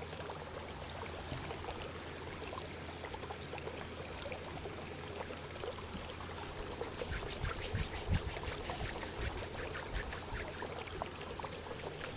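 Steady sound of running water, with a constant low hum and a few soft thumps about seven to eight seconds in.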